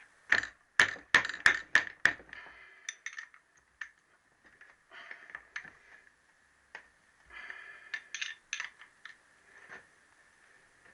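Spanner working the big-end cap nuts of a Triumph T120R connecting rod: a quick run of about six sharp metallic clacks in the first two seconds, then scattered clicks and short metal rattles as the rod cap is worked loose.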